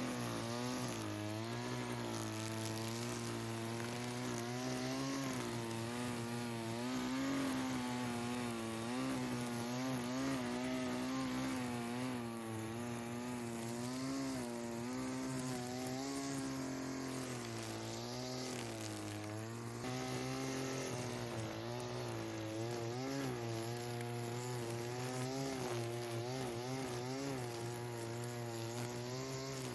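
Two-stroke engine of a handheld string trimmer running throughout, its pitch rising and falling as the throttle is worked while cutting.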